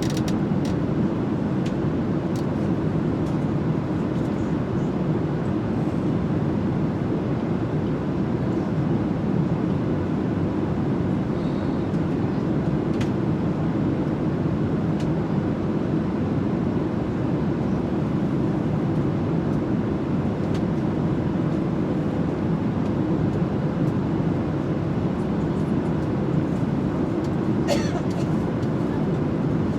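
Steady, even roar of an airliner cabin in flight, engine and airflow noise with a faint steady hum and a few small clicks.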